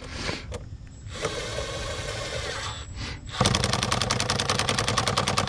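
Power driver running briefly, then about two seconds into the sound a fast, steady rattle of rapid impacts, typical of an impact driver hammering a fastener tight.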